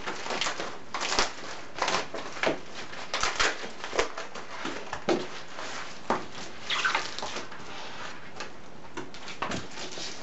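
A shiny plastic mailing envelope crinkling and rustling in irregular crackles as it is opened by hand and a plastic-wrapped foam board is slid out of it.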